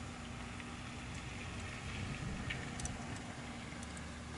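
Steady low background noise with a few faint clicks of a wrench tightening the centre bolt of an A/C compressor clutch plate, about two and a half to three and a half seconds in.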